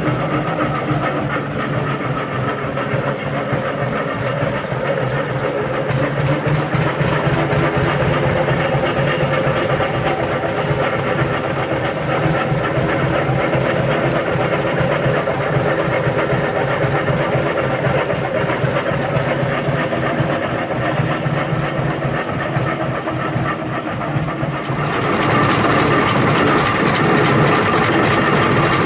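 Engine of a 1926 Rumely M winch tractor running steadily while the tractor is driven, with a fast, even beat. About 25 seconds in it turns louder and brighter, heard from right beside the engine.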